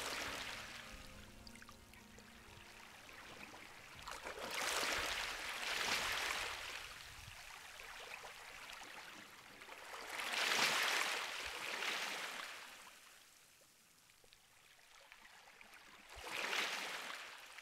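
Sea water washing in slow surges, a rushing hiss that swells and ebbs four times, like waves breaking and drawing back.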